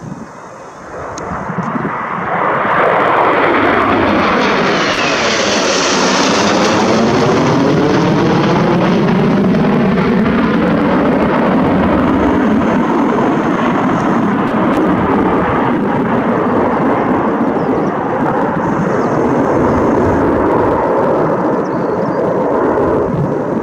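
Four Panavia Tornado jets flying past in formation, their RB199 turbofan engines building quickly to a loud jet noise about two seconds in. A sweeping, phasing whoosh follows as they pass overhead, then a steady heavy jet rumble as they fly away.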